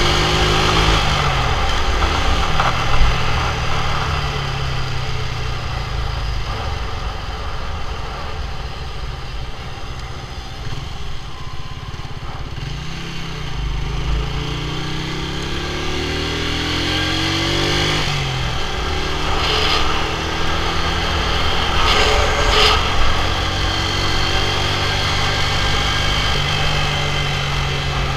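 A motorcycle engine runs under way with road noise. Its pitch drops about a second in, then rises steadily for several seconds as it revs up and falls sharply just past the middle. A few short high-pitched sounds come about two-thirds of the way through.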